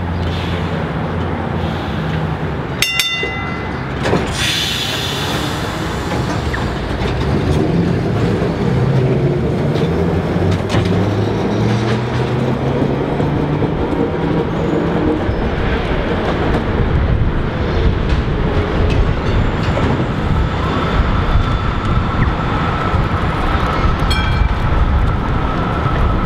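W-class City Circle trams running on street track: steel wheels on the rails, with a short ringing tone about three seconds in. From about eight seconds in, the traction motors whine with a rising pitch as the tram accelerates away. Near the end a B2-class tram approaches with a steady whine.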